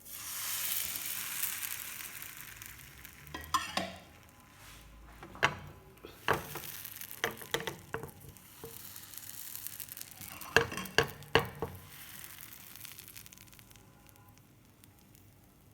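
Crêpe batter hitting a hot pan and sizzling: a sudden hiss that is loudest at first and fades over a few seconds, with scattered sharp clicks and knocks of a utensil against the pan.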